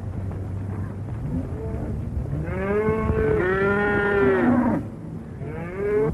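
Herd of cattle lowing: long drawn-out moos from about two seconds in, two running into each other, and a shorter one near the end, over a low steady rumble.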